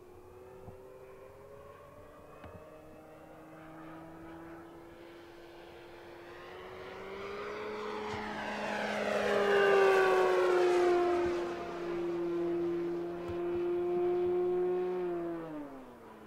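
Electric motor and propeller of a Hangar 9 Fun Scale P-47 Thunderbolt RC model, on 6s with an APC 12x8 prop, whining in flight. It grows louder to a peak about ten seconds in and swells again. The pitch drops sharply near the end.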